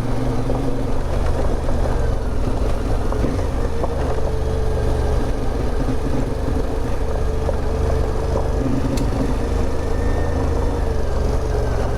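CFMOTO 450MT adventure motorcycle's parallel-twin engine running at low, steady revs while riding, with wind and road noise.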